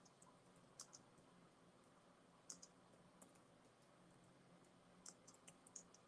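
Faint typing: scattered light key clicks, a few single ones early on and a quick run of them about five seconds in, as an email address is typed into a chat.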